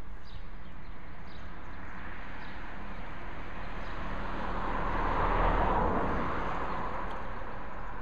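A passing vehicle's noise swells to a peak about two-thirds of the way through, then fades, over faint outdoor background with small bird chirps.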